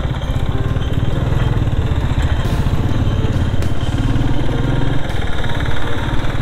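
Royal Enfield Meteor 350's single-cylinder engine running steadily with an even low beat, the motorcycle under way.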